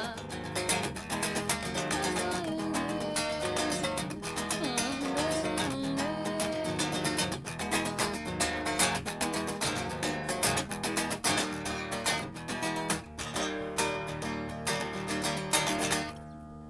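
Acoustic guitar playing an instrumental passage of a samba with fast, flamenco-style strumming and a picked melody. It stops shortly before the end.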